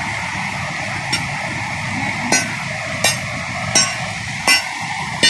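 Water rushing steadily over the steps of a weir. From about a second in, a short, sharp clicking beep cuts through it, repeating evenly about every three-quarters of a second and growing louder.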